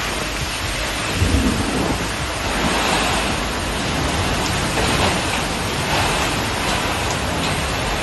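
Heavy rain and strong gusting wind of a thunderstorm: a dense, steady rush of noise that swells briefly now and then with the gusts.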